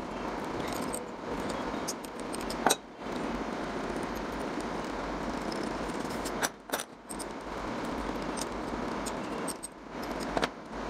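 Small metal clinks and taps as the nuts and bolts holding a refrigerator compressor's motor stator are unscrewed and pulled out, over a steady background hiss. A few sharper clicks come about three, seven and ten seconds in.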